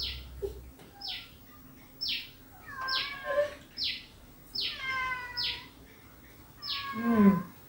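A small animal calling over and over: short high cries that fall in pitch, about one a second. Near the end there is a short lower vocal sound.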